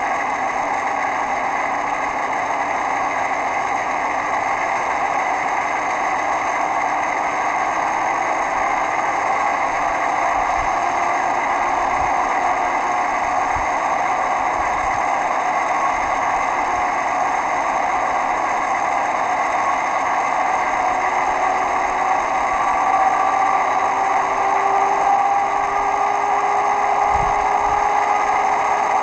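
ESU LokSound 5 decoder playing a China Railway DF4B diesel locomotive's engine sound through a small model speaker. The engine runs steadily, then its note slowly rises over the last third as the revs build.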